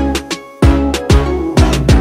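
Background dance music with a deep, steady kick-drum beat, about two beats a second, that drops out briefly around half a second in and then comes back.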